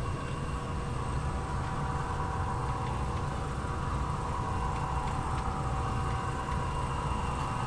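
HO scale model train, two SD40-2 diesel locomotives, running out of a tunnel: a steady low rumble with a constant whine of several steady tones.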